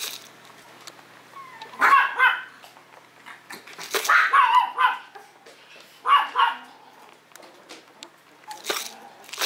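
Maltese dog barking and yipping in three short bouts about two seconds apart.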